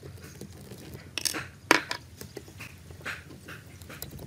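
Steel hex key clinking and scraping in a rusty socket-head screw on an old staple gun's metal head, with a few sharp metallic clicks, the loudest between one and two seconds in.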